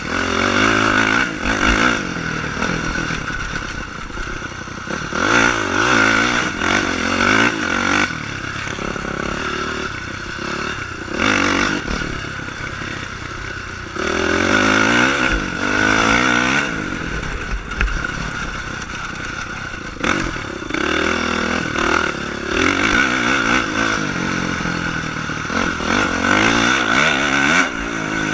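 Honda CRF450 dirt bike's single-cylinder four-stroke engine revving hard and backing off again and again as the rider accelerates and slows along a rough dirt trail, the pitch climbing and falling every few seconds, with occasional knocks and rattles from the bike.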